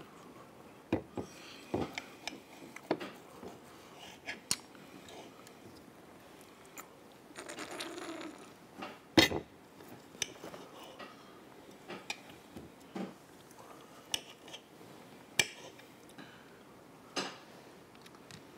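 Scattered clinks and clicks of cutlery on plates at a table, with one louder knock about nine seconds in.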